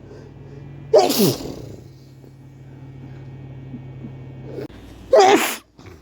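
A man sneezes twice, about four seconds apart, each a short loud burst. These are induced sneezing fits brought on by chhikni sneezing powder.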